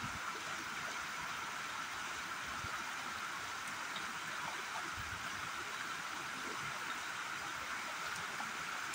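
Steady rush of flowing river water, an even hiss without breaks.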